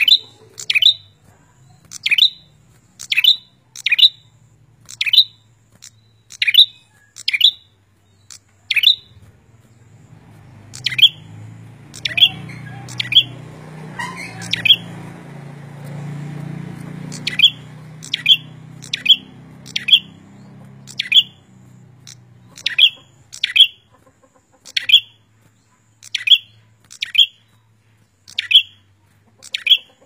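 A caged prenjak, a small long-tailed songbird, calling loudly and tirelessly in short, sharp, downward-sweeping chirps, often in pairs, about one to two a second. A low rumble swells in the background through the middle and fades again.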